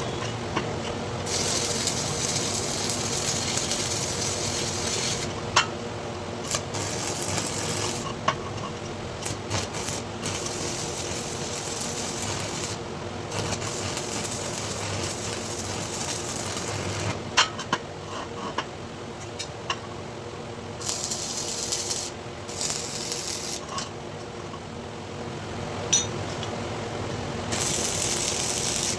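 Electric arc welding: a crackling hiss in runs of a few seconds that stop and start again, with sharp metallic taps and clinks between the runs.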